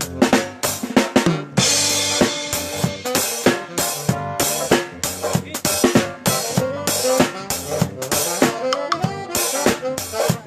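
A live band playing, the drum kit to the fore: snare, bass drum and cymbals struck in quick rhythm, with bass and other pitched instruments underneath.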